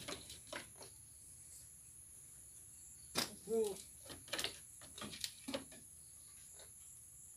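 Goat in a slatted bamboo pen: scattered light knocks and clicks, with one short, soft bleat about three and a half seconds in.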